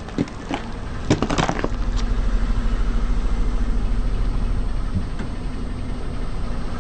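Car engine idling steadily with an even, fast pulse. In the first two seconds there are several sharp cracks and snaps of objects crunching under the car.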